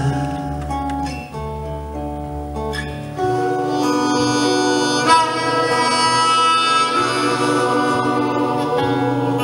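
Acoustic guitar accompanying a mixed choir that holds long wordless chords. The choir comes in fuller about three seconds in.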